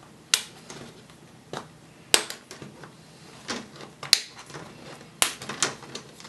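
Plastic screen bezel of a Dell Latitude 3540 being unclipped by hand from the display lid, its retaining clips snapping free one after another in a series of sharp clicks, roughly one a second.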